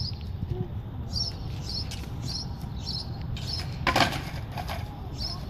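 A small bird chirping repeatedly in short, high notes, about two a second, over a steady low rumble, with a brief loud noise about four seconds in.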